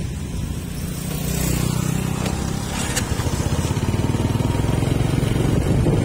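A motor vehicle's engine running on the road, growing louder about a second in.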